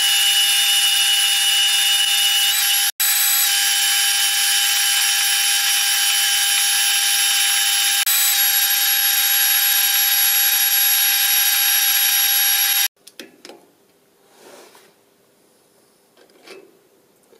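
Manual metal lathe running under a turning cut on round stock: a loud, steady whine made of several fixed tones over a hiss, with a momentary break about three seconds in. It stops abruptly about thirteen seconds in, leaving only a few faint handling clicks.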